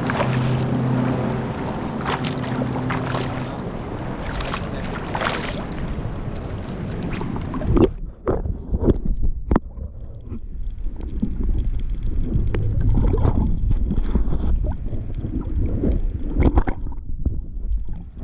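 Water sloshing and splashing against a camera held at the surface, with wind on the microphone and a low steady hum in the first few seconds. About eight seconds in the microphone goes underwater: the sound turns muffled and dull, with irregular knocks and bubbling.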